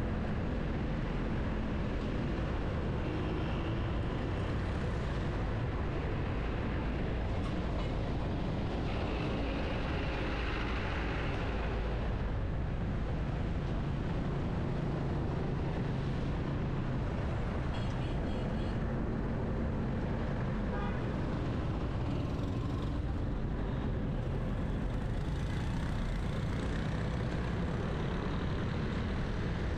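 Busy city traffic heard from a moving car: a steady rumble of engines and road noise, with vehicle horns tooting a few times.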